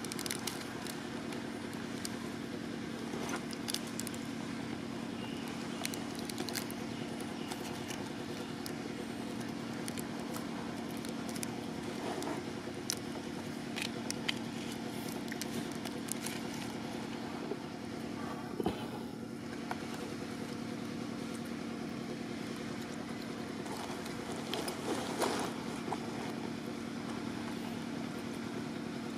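Steady motor hum, like an idling engine, with scattered light crinkles and clicks of a plastic wrapper being handled.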